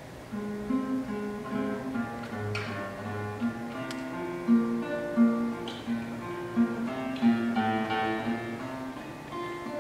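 Solo classical guitar playing a phrase of plucked single notes and chords, with a few sharp, louder chord attacks scattered through.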